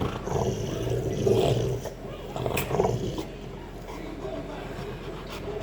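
A dog growling: two long, rumbling grumbles in the first three seconds, then quieter.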